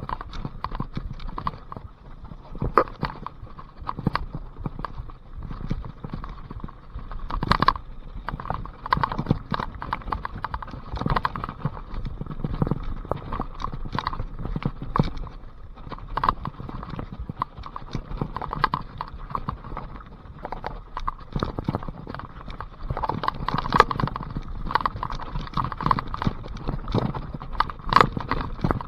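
Mountain bike ridden down a muddy trail: a continuous run of irregular knocks and clatters from the bike's frame, chain and suspension over bumps, mixed with the tyres working through mud.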